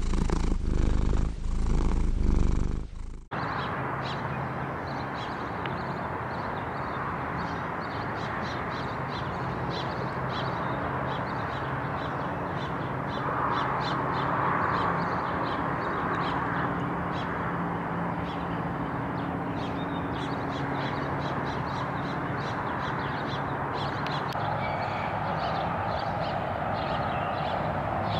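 A cat purring close to the microphone in slow pulses, which cuts off suddenly about three seconds in. Then outdoor ambience: birds chirping and calling over a steady low hum.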